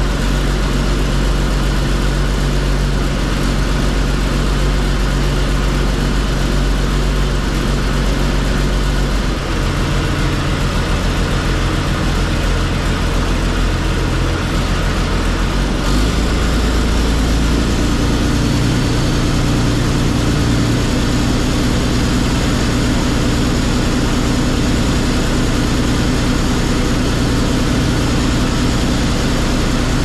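Komatsu D85E bulldozer's six-cylinder diesel engine running cold, now firing on all six cylinders after an injector rebuild; the engine speed steps up about halfway through. It runs rough enough that the owner suspects the injection timing is slightly retarded.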